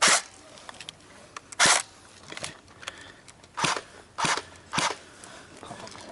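Five sharp, short pops from air-powered game guns firing at irregular intervals over about five seconds; the loudest come at the very start and about a second and a half in.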